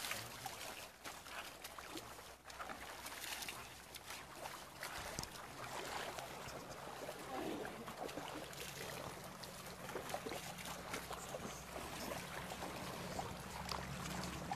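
Water splashing and trickling as people wade in a shallow river and throw water over bathing elephants, with many small irregular splashes. A low steady hum joins about eight seconds in.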